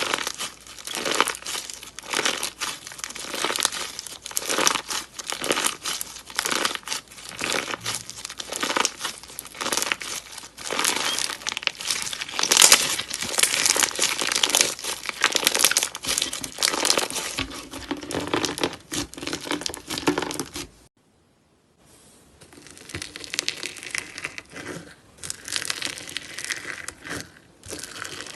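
Slime being squeezed and worked by hand, making dense crackling and popping. About 21 seconds in it cuts out to silence for a moment, then resumes a little quieter.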